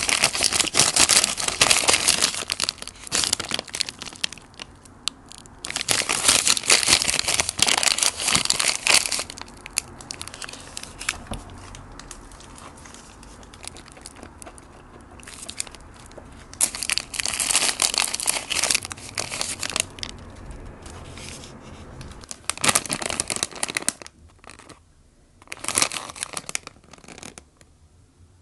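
Paper fast-food wrapper crinkling and rustling as it is handled and opened. The sound comes in several loud bursts, with quieter stretches between.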